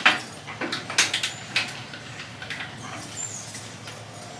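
A few short scrapes and knocks from handling a leather-wrapped tomahawk handle while trimming its excess leather with a pocket knife. The loudest comes right at the start and another about a second in, with smaller ones up to about two and a half seconds.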